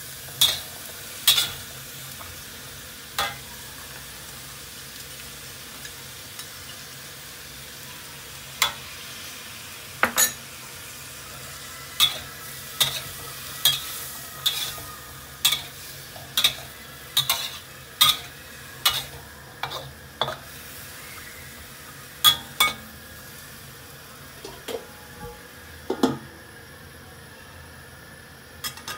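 Hairy gourd and minced pork sizzling in a wok, stir-fried with a metal spatula that scrapes and knocks against the pan. The sharp clinks come irregularly, often about a second apart, over a steady sizzle.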